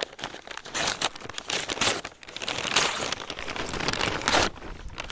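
Brown paper packaging rustling and crinkling in repeated handfuls as it is pulled open.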